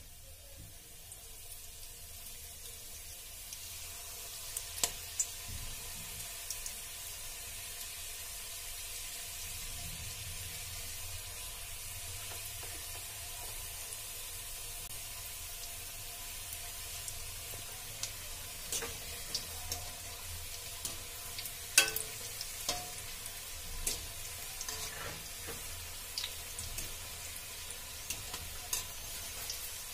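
Vegetable spring rolls deep-frying in hot refined oil in a kadhai on a high flame: a steady sizzle that builds over the first few seconds and then holds, with scattered sharp pops and clicks, the loudest about 22 seconds in.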